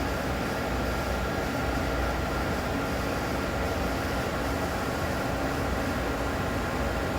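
Star Ecas 20T CNC Swiss-type lathe running a cutoff program, its spindle turning: a steady mechanical hum and rush with a thin constant whine.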